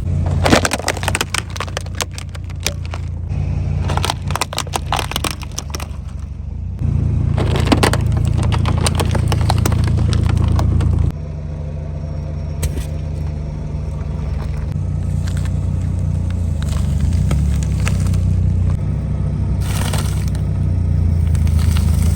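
A car's tyres rolling over brittle objects and crushing them, with bursts of crunching and cracking over the low, steady rumble of the car. The crushes come several times, in separate short clips.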